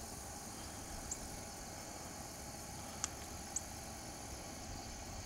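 Steady high-pitched drone of insects in a summer field, over a low wind rumble on the microphone. A few brief high chirps come about a second in and again around three seconds in.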